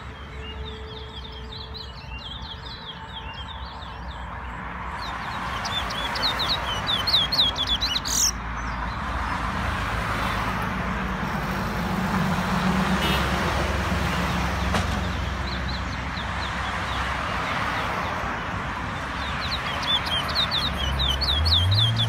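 Small caged songbird singing in runs of rapid, high chirping notes: one near the start, one about six seconds in, and one near the end, over a steady background hiss.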